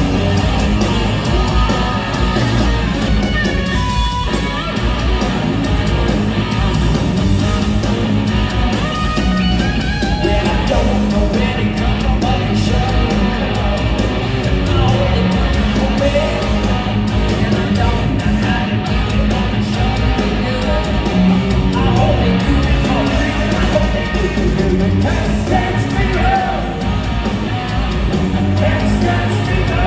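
Live hard rock band playing loud, with electric guitars, bass and drums, heard through a phone recording from the crowd in a large hall.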